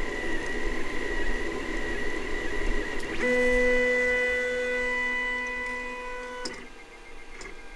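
Delta 3D printer's stepper motors buzzing through the last moves of a print, then, about three seconds in, switching abruptly to a steady whine of several held tones for about three seconds as the print head travels up the tower at the end of the print. The whine cuts off, leaving a quieter hum.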